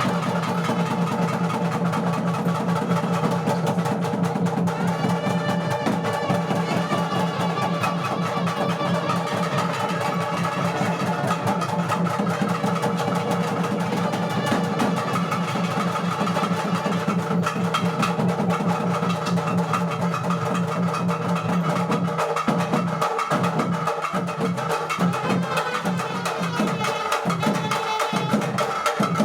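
Music: fast, dense drumming with sharp stick strokes over steady held tones.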